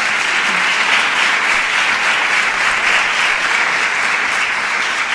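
Large audience applauding, a dense, steady clapping that holds at the same level throughout.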